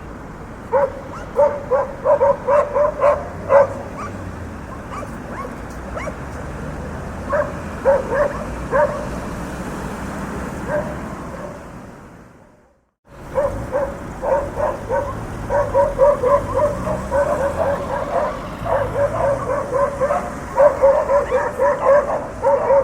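Dogs barking in quick volleys of several barks a second over a steady rumble of street traffic. The sound fades out to silence a little past halfway and then comes back with more barking, busier towards the end.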